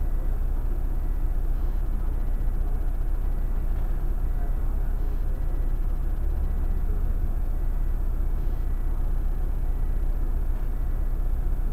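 Irisbus Crossway LE 12.8M city bus running, a steady low engine and road noise with no breaks.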